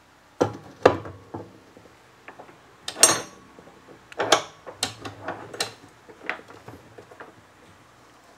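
A steel flat bar is laid on the metal base of a DeWALT DW872 chop saw and the saw's vise is slid up and screwed tight against it: a series of knocks and metallic clicks. The loudest, a ringing metal clack, comes about three seconds in, followed by lighter, quicker clicks as the vise handle is worked.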